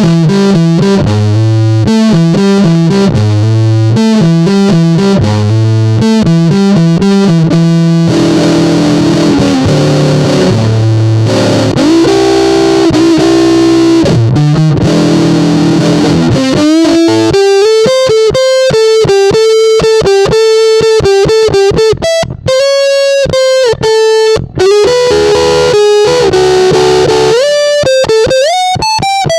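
Electric guitar (Squier VM Jazzmaster) through a Muff-style fuzz pedal with the gain set high, playing a rhythmic chugging chord riff, then sustained chords. About halfway through it turns to single-note blues licks with string bends.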